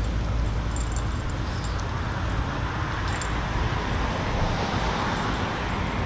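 Street traffic noise with a low rumble, swelling as a car passes about four to five seconds in, then easing off.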